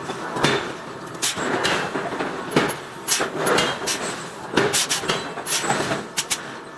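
Irregular metal knocks and scrapes from hot iron being forged and handled, about one to two a second with no steady rhythm.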